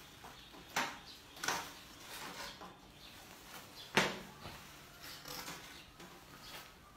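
A few short knocks and rattles of a wire-mesh cage trap being handled, with the sharpest knock about four seconds in.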